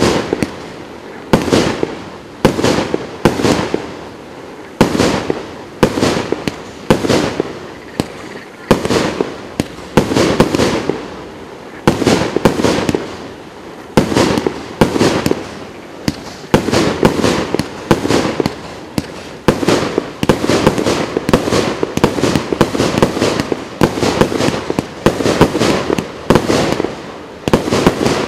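30 mm (1.2-inch) consumer firework cake firing shot after shot: repeated sharp bangs of tubes launching and shells bursting, at first about one to two a second and coming faster and closer together in the last third.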